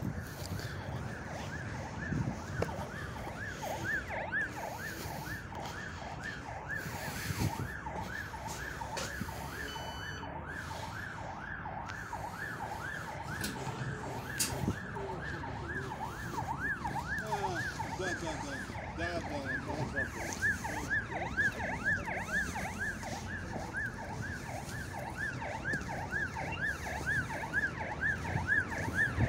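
Electronic siren sweeping up and down about twice a second in a steady, unbroken cycle, over background noise with a few knocks.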